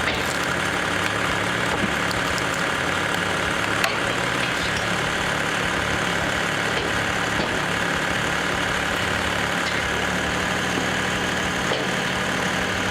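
Log splitter's engine running steadily, with a couple of faint clicks.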